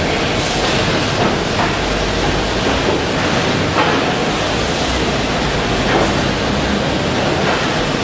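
Steady, loud factory noise like a constant hiss or rush, with a few faint knocks.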